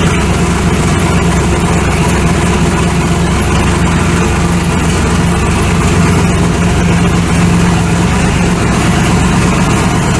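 Vehicle engine running steadily under road noise, an unchanging low drone with a rushing hiss, as when cruising on the highway.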